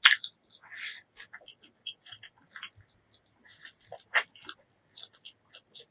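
Close-miked eating: a mouth chewing and biting food in a run of short, irregular wet clicks and crackles, the loudest right at the start, just before a second in, and about four seconds in.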